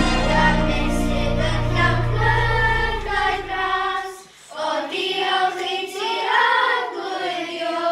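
A group of children singing a song together in Welsh, unaccompanied by instruments in the room. A low steady music bed underneath fades out about halfway through.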